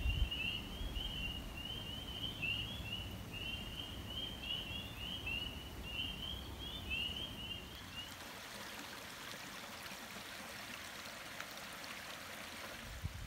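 A chorus of spring peepers: many short, rising peeps overlapping in quick succession. About eight seconds in the peeping stops and running water takes over.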